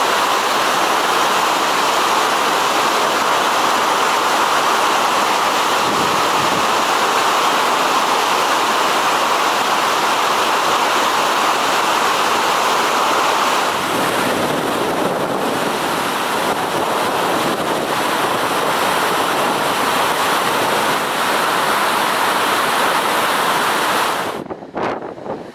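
Steady, loud rushing roar of an ice avalanche, ice and snow breaking off a hanging glacier and pouring down a rock cliff. The sound changes about two-thirds of the way in and falls away near the end.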